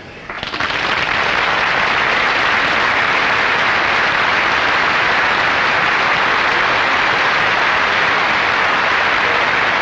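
An audience applauding: many hands clapping together, swelling up in the first second and then holding steady.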